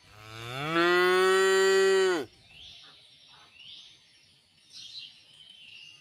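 A cow mooing once, a long call of about two seconds that swells and rises in pitch at first, holds steady, then stops abruptly. Faint bird chirps follow.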